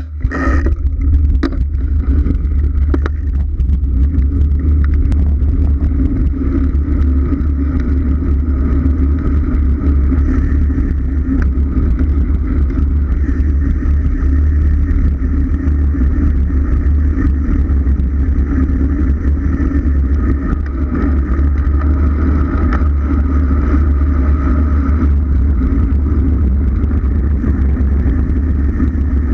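Wind buffeting the microphone of a bicycle-mounted camera on a fast road descent: a steady, loud low rumble with rushing road noise. A few sharp clicks near the start.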